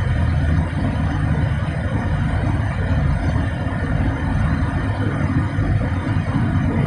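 Steady rumble of a car driving at road speed, heard from inside the cabin.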